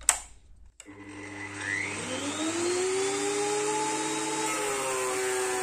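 Switch click, then a JIB 22139 thickness planer's motor and three-knife cutterhead starting up, its whine rising over about two seconds before running steadily. The pitch dips slightly about four and a half seconds in.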